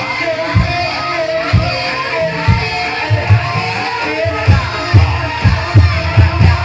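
Banyumasan gamelan music accompanying an ebeg dance: deep drum strokes about once a second, coming faster in the second half, under a ringing metallophone melody.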